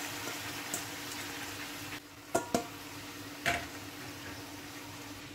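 Chicken and spice masala sizzling in a steel kadai as raw rice is poured over it; the sizzle drops about two seconds in, then a few sharp knocks of utensils against the pan, with the quieter sizzle going on under a steady low hum.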